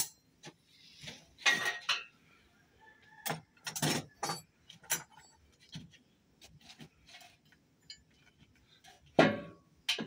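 Scattered light metallic clicks and clinks of metal parts being handled at a concrete pump's hydraulic valve block, with a louder knock near the end.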